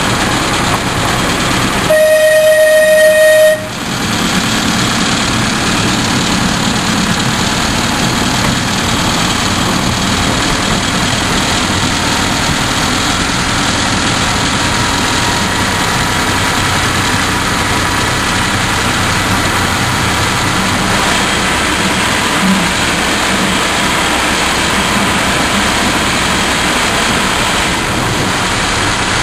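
A miniature railway locomotive sounds its horn once, a single note lasting about a second and a half, about two seconds in. Around it is the steady running noise of the train's engine and carriages, heard from a carriage close behind the locomotive.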